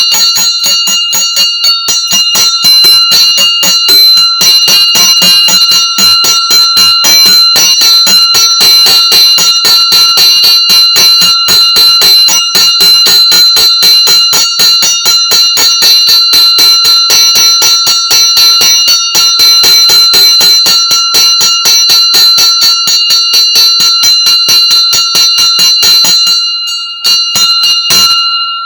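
Hindu puja bell (ghanta) rung rapidly and continuously, its clapper striking many times a second over a steady ringing tone. Near the end the strikes stop, one more falls, and the bell rings on.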